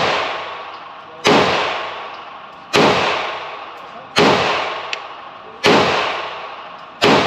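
Five handgun shots fired at a steady pace, about one and a half seconds apart, each with a long echoing decay.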